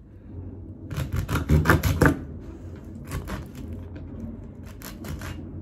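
Small kitchen knife tapping, clicking and scraping against a wooden cutting board while cutting raw chicken, in a few quick clusters, the loudest about a second or two in.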